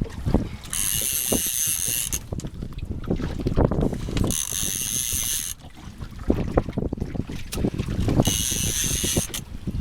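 Fishing reel paying out line in three high whining bursts of about a second and a half each, over continuous low wind and boat noise.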